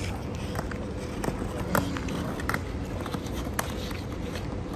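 Skateboard ridden on asphalt: a handful of sharp clacks, the strongest about two seconds in, over a steady outdoor rumble.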